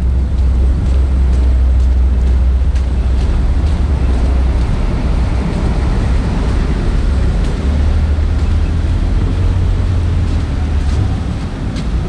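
Wind buffeting the camera microphone as a heavy, fluctuating low rumble, over the steady noise of traffic on the road alongside.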